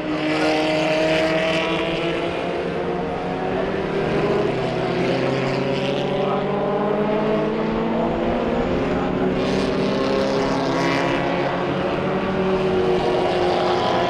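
Several 1960s historic formula racing cars running through a corner one after another, their engine notes overlapping and rising and falling in pitch as each car accelerates and passes.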